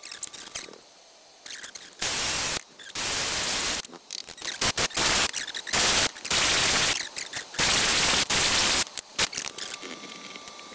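Cordless drill spinning an abrasive deburring wheel against the edges and drilled holes of thin aluminium plate, in several bursts of rough, even hiss that start and stop abruptly. Between the bursts, quieter handling knocks and rustles of parts on a workbench.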